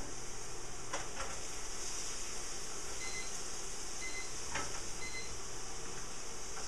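Steady hiss and low hum of a running portable induction cooktop, with three short faint electronic beeps about a second apart near the middle and a few soft clinks of utensils.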